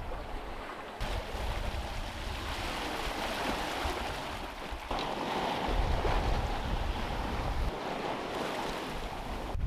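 Water rushing and hissing along the hull and in the foaming wake of a sailing yacht under way in a fresh breeze, with gusts of wind rumbling on the microphone that come and go.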